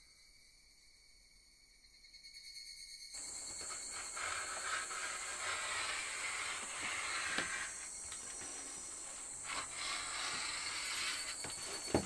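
Faint for about the first three seconds, then a rotary cutter rolling through thick cotton fabric on a cutting mat, with the cloth rustling as it is handled, over a steady high hiss. Two sharp clicks near the end.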